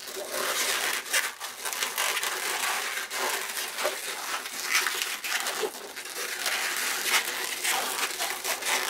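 Inflated latex modelling balloons rubbing and squeaking against each other and against the hands as they are twisted and pulled into shape: a steady run of short, crinkly rubs and squeaks.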